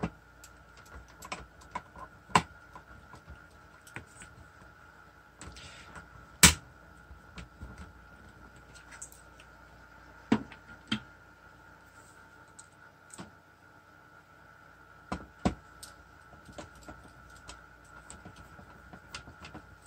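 Irregular clicks and knocks of small plastic and metal parts being handled and fitted as a cassette tape deck is reassembled, the sharpest knock about six seconds in. A faint steady high tone runs underneath.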